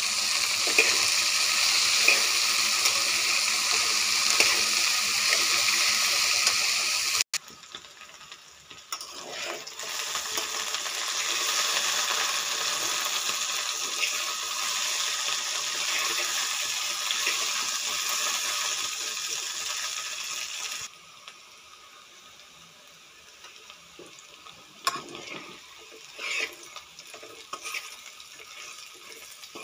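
Okra frying in oil in a metal pan, sizzling steadily as a spatula stirs it. The sizzle cuts off abruptly about seven seconds in, comes back a couple of seconds later, and drops away about twenty-one seconds in, leaving only occasional scrapes of the spatula against the pan.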